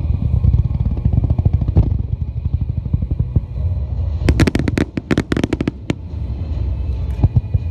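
Starmine fireworks barrage: a dense low rumble of shells bursting overhead, then about four seconds in a rapid volley of sharp cracks lasting over a second and a half, with a few more single reports near the end.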